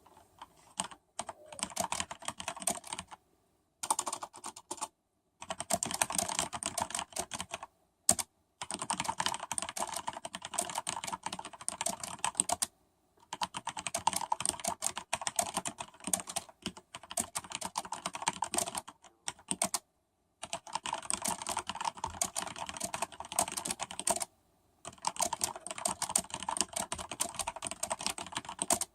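Fast typing on a Corsair K95 RGB mechanical keyboard with Cherry MX Red linear switches and ABS keycaps: a rapid clatter of keystrokes in long runs, broken by short pauses, with one louder single key strike about eight seconds in.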